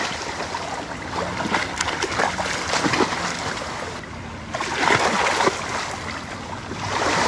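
Choppy lake waves splashing and lapping against the shore, a steady wash of water with small splashes, swelling twice in the second half.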